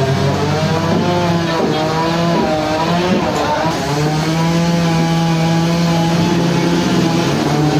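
Engine-driven sawmill machinery running steadily, its pitch dipping and rising several times in the first half before holding steady.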